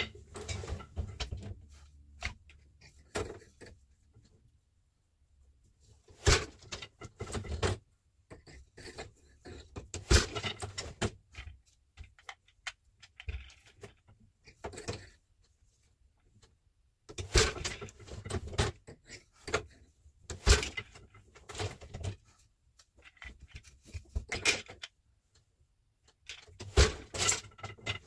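Weaving on an 8-shaft floor loom: wooden boat shuttles thrown and caught and the wooden beater knocking each weft pick into the cloth. Groups of knocks and clatter come with short quiet pauses between them, as the weaver alternates a lavender pattern shuttle with a white cotton tabby shuttle.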